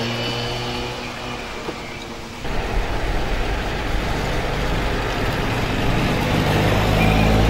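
A steady low hum, then, about two seconds in, World War II jeeps driving close by, their engines running with a rumbling exhaust that grows louder toward the end.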